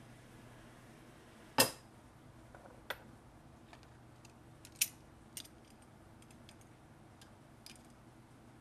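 Sharp metallic clacks as hard-drive magnet pieces and hand tools are handled and set down on a plastic cutting board: a loud one about one and a half seconds in, a few more around three and five seconds in, then lighter ticks.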